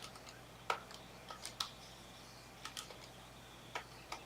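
Scattered light clicks and taps at a desk, a few at a time with pauses between.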